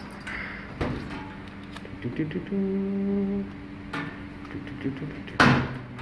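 Clicks and rattles from the key and latch of a metal distribution board door as it is opened and closed. A loud clunk comes about five and a half seconds in as the panel door is shut. A low, steady hum of plant room machinery runs underneath.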